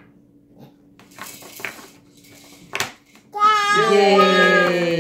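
A wooden puzzle piece knocks against the wooden peg-puzzle board about three seconds in, followed by a loud, long drawn-out cheering voice that slides down in pitch near the end.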